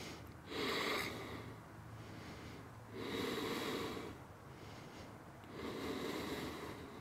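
A woman breathing audibly close to a head-worn microphone: three slow, deep breaths, about one every two and a half seconds.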